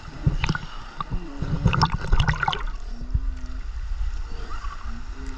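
Water slapping and gurgling against a camera held at the sea surface, with a steady low rumble and a few sharp splashy knocks about half a second and two seconds in. Short low calls from the sea lion colony on the rocks come through now and then.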